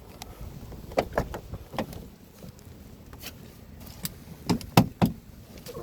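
Scattered sharp clicks and knocks of handling at the car, the loudest three in quick succession near the end, with the engine not yet running.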